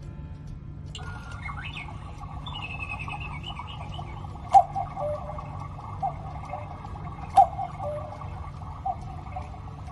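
Engstler electronic quartz cuckoo clock calling the hour: a recorded birdsong background starts about a second in. Over it come two loud two-note cuckoo calls, falling in pitch, about three seconds apart, each opening with a sharp click.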